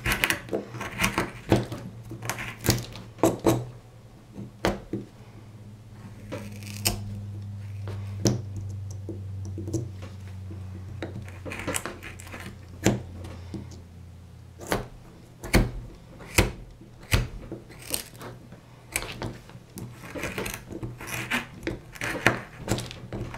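A hand carving tool is cutting into a wood block, taking off chips, roughing out the waste wood by hand. It makes a run of short, crisp cutting and snapping sounds at an uneven pace.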